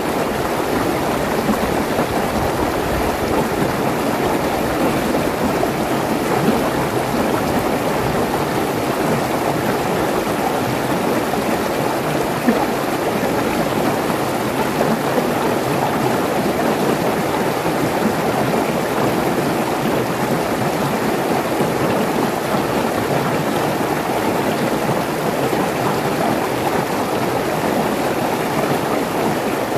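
Mountain stream rushing and splashing over rocks in small cascades: a steady, unbroken sound of running water.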